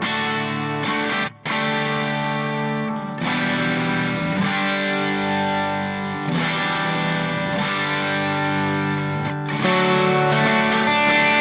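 Background music: a distorted electric guitar playing long held chords that change every second or two, with a brief break about a second and a half in.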